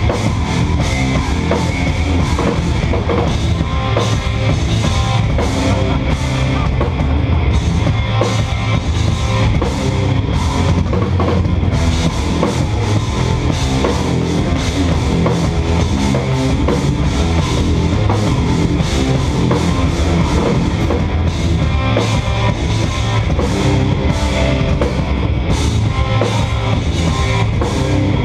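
Instrumental progressive metal band playing live: eight-string electric guitars over a drum kit with busy bass-drum work, loud and dense, heard from the audience.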